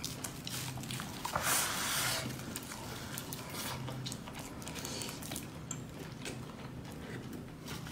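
A person chewing a mouthful of food up close, with wet smacking and frequent short mouth clicks. A longer rushing noise comes about a second and a half in.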